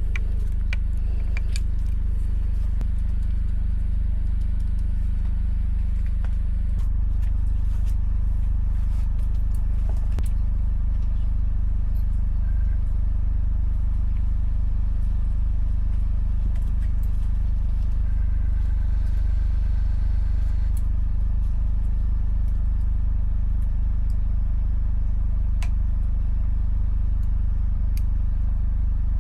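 Motorcycle engine running at a steady speed: a deep, even rumble with a steady low drone, a slight change in tone about seven seconds in, and a few faint clicks.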